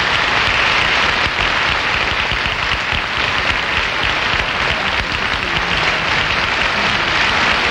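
Studio audience applauding: dense, steady clapping that holds at one level throughout.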